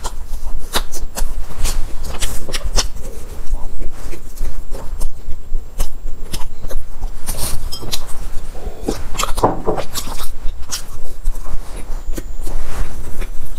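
Close-miked chewing and wet mouth clicks of a person eating a soft pastry, irregular and ongoing, with a denser stretch of chewing about two-thirds of the way in. A steady low hum runs underneath.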